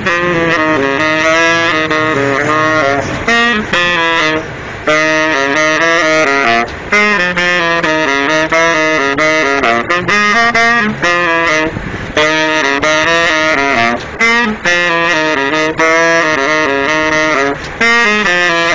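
Saxophone played solo: melodic phrases of changing notes with vibrato on the held tones, broken every few seconds by brief breath pauses.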